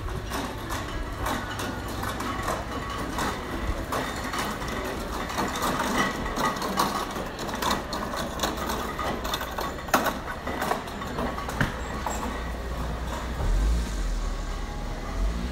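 Busy market-stall ambience: a steady din with frequent small clicks and clatter and a low rumble underneath, which swells briefly near the end.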